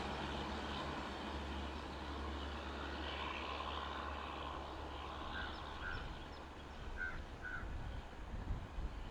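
Low, steady rumble of a passing diesel-hauled train, fading away about halfway through, with a few short bird calls near the end.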